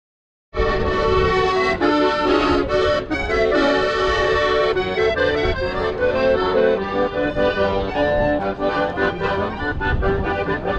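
Background music carried by an accordion playing a sustained, chordal melody, cutting in suddenly about half a second in after dead silence.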